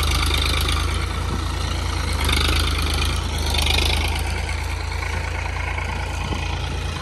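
Farm tractor engine running steadily under load as it pulls a tine cultivator through the soil.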